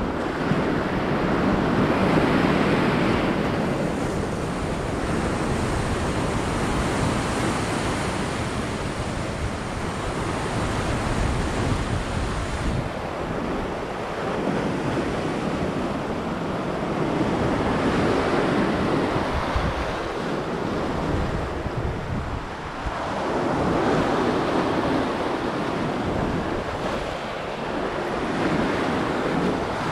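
Sea waves breaking and washing over a rocky shore ledge, swelling and ebbing every several seconds, with wind buffeting the microphone.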